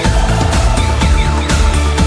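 Electronic music with a steady beat and bass.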